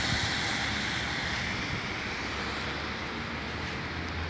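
Road traffic noise on a wet street: the hiss and rumble of a passing vehicle fading slowly away, over a steady low hum.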